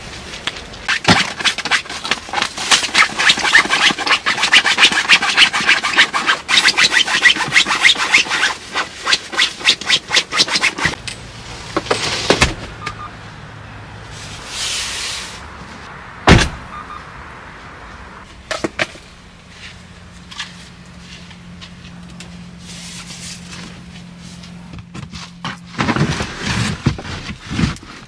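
A tent zipper drawn in a long, rapid, scratchy run lasting about ten seconds, followed by a short hiss, a single sharp knock and some rustling near the end, over a low steady hum.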